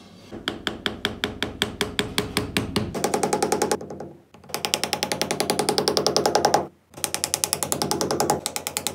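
Small hammer tapping rapidly on the tops of red-painted wooden sticks, driving them upright into a diorama base as posts. The taps come evenly, several a second, in three runs broken by two short gaps.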